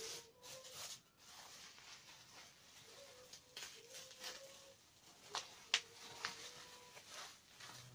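Bubble wrap rustling and crinkling as it is unwrapped and pulled along by hand, with a few sharp crackles a little past halfway.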